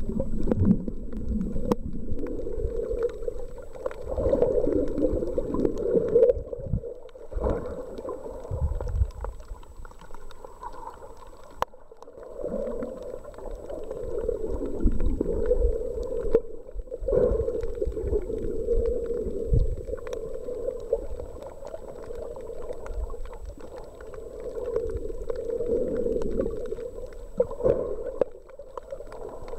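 Muffled underwater sound heard through a camera held below the surface: water sloshing and gurgling with low rumbles, swelling and fading every few seconds, and a faint steady high whine throughout.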